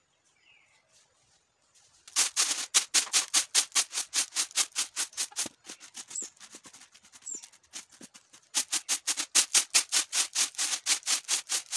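Dried, hand-pounded coffee beans rattling on a woven bamboo winnowing tray shaken in quick rhythmic strokes, about six a second. The rattling starts about two seconds in, eases off in the middle, then picks up again as the tilted tray spills beans off its edge.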